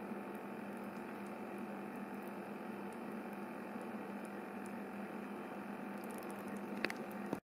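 Braising liquid gently simmering in a slow cooker around a beef pot roast: a steady bubbling hiss with a low hum under it and a few faint ticks, cutting off abruptly at the very end.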